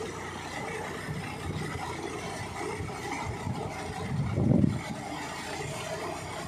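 Sonalika 42 DI tractor's diesel engine running steadily under load as its rear rotavator churns through the flooded paddy mud, with a brief louder swell about four and a half seconds in.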